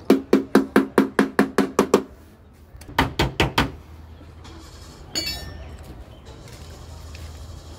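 A rapid run of about a dozen sharp knocks with a low ring, about five or six a second, is followed a second later by five more and then a short metallic clink. It is tool work on a car's body panel.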